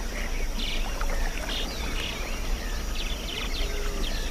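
River ambience around a canoe: a steady wash of water with scattered short, faint bird chirps.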